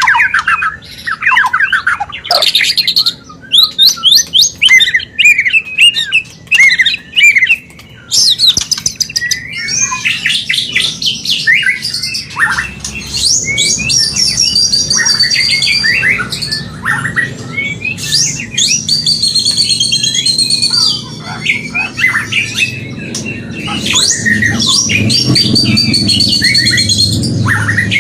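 White-rumped shama (murai batu) singing its breeding-condition song: a dense, unbroken run of rapid, varied whistles, sliding notes and harsh squawky notes. A low hum builds up in the background over the second half.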